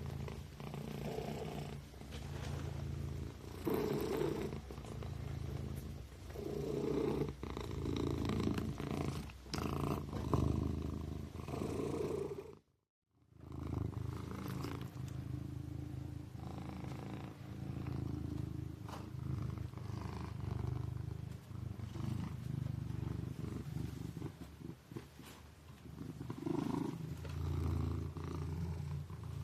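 Kitten purring steadily, a low rumble that swells and eases every couple of seconds. It cuts out for about half a second around the middle, then resumes.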